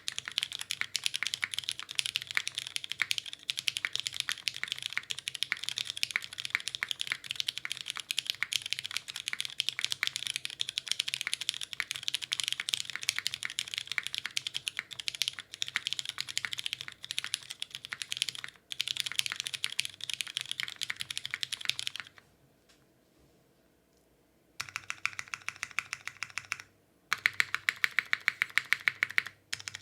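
Mechanical keyboard typing on lubed Cherry MX Brown Hyperglide tactile switches with 68 g springs, mounted on an undampened aluminium plate under GMK doubleshot ABS keycaps: a fast, continuous clatter of keystrokes. It stops for about two seconds two-thirds of the way through, then resumes, ending in a run of louder, evenly spaced strokes.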